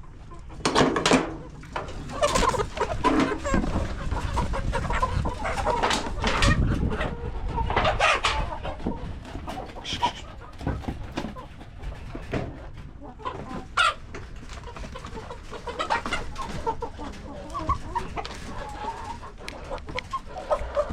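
A flock of chickens clucking and calling, many short overlapping calls with louder outbursts now and then.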